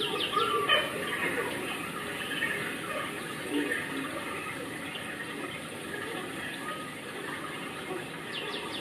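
Steady rush of running water, with faint scattered voices in the background.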